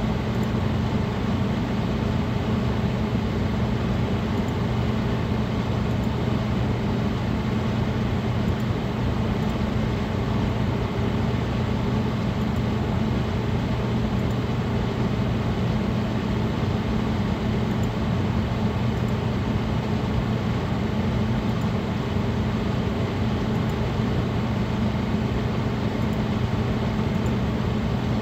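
Cooling fans of a running gaming PC (Cooler Master case fans, a Corsair liquid cooler and an MSI GTX 970 graphics card) running steadily: an even rush of air with a low, constant hum.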